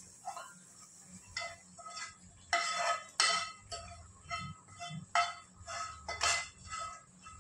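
Steel kitchen utensils and vessels clinking and knocking against each other in a rapid, irregular series of ringing clinks, loudest a little after three seconds in and again past six seconds.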